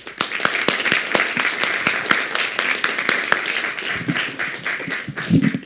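Audience applauding, dense clapping at the close of a talk that thins out and fades near the end.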